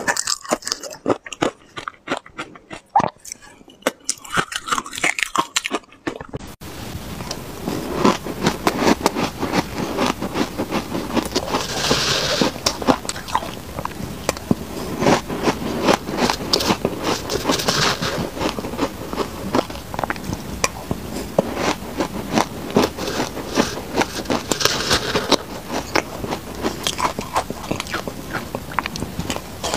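Close-miked biting and chewing of shaved ice heavily coated in purple sweet potato powder: dense, irregular crunching, bite after bite. About six seconds in, a steady background hiss sets in under the crunches.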